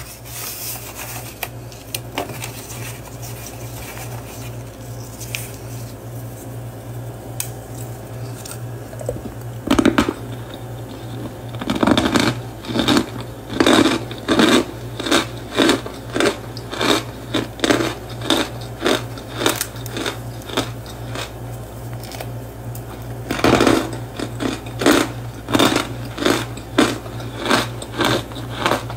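Fingers squeezing and crushing cornstarch chunks in loose powder: soft crackling and squeaking at first, then a loud crunch about ten seconds in, followed by evenly repeated crunches about three every two seconds, with a short pause before they start again.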